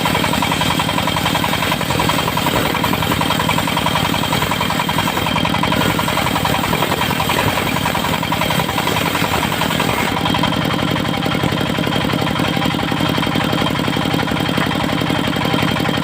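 Mobile circular sawmill running: its engine drives the saw blade with a steady low rhythm and the blade cutting wood. About ten seconds in, the higher noise drops away and the engine runs on.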